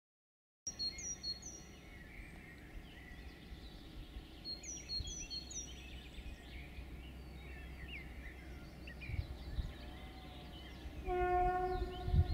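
A bird chirps a short three-note phrase twice over a faint low rumble. About eleven seconds in, an ST44 (M62) diesel locomotive's horn sounds one steady note for about a second.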